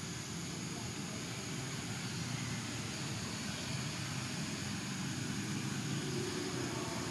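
Steady outdoor background noise: a low, even drone with a hiss above it, with no distinct events.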